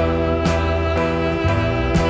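Background music: sustained chords with a beat about every half second.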